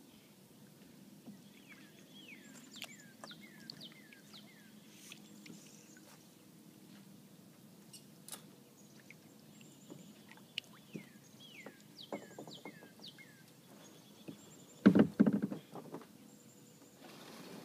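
A bird sings short falling chirps in quick runs of four or five. About fifteen seconds in comes a loud burst of low knocks and scraping from a kayak being launched.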